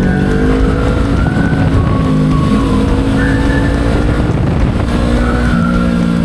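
Motorcycle riding at road speed: steady engine and wind noise, with background music playing over it.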